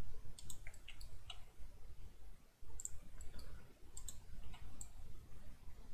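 Faint, irregular clicks of a computer mouse and keyboard keys, a few a second, as bones are selected and moved on the computer.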